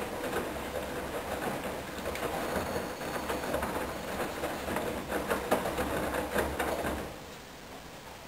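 Hoover DYN 10124DP front-loading washing machine in its main wash: the motor hums as the drum turns, with wet sheets tumbling and swishing inside. The drum stops about seven seconds in, pausing between turns.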